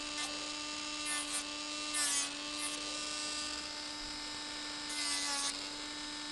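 Electric nail drill (e-file) running at a steady hum, its bit filing lightly around the edges of lifted gel on a nail, with a few brief scratchy passes about one, two and five seconds in.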